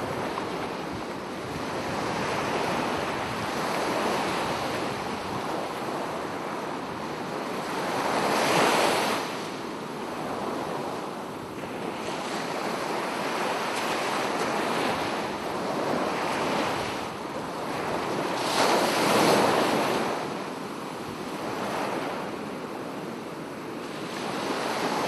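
Ocean waves washing in and drawing back, a steady noise that swells into two stronger surges, about a third and three quarters of the way through.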